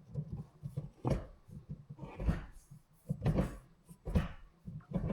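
Gear shifter being moved through the gates, with about five short clunks roughly a second apart as the lever goes into each gear.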